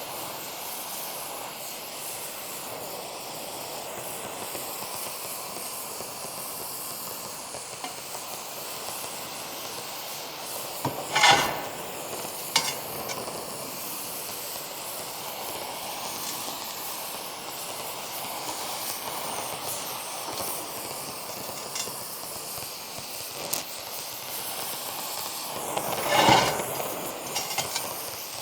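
Oxy-acetylene torch flame hissing steadily while preheating an aluminium wheel before welding. Two brief louder surges come through, about eleven seconds in and again near the end.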